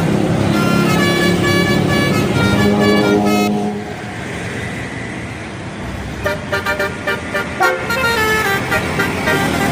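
Bus telolet horn playing a quick melody of stepped tooting notes, stopping a few seconds in, leaving a stretch of engine and traffic noise, then starting again with faster, choppy notes in the second half.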